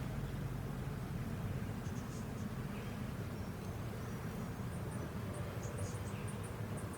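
Honeybees humming steadily from an open hive during a frame inspection, with a few faint high ticks in the second half.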